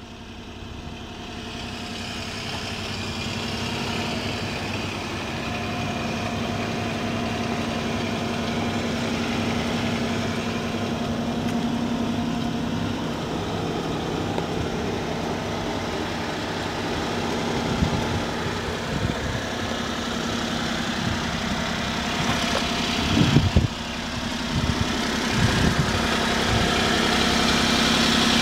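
Honda Acty kei truck's small three-cylinder engine idling steadily, getting louder toward the end. A few short knocks sound over it in the second half.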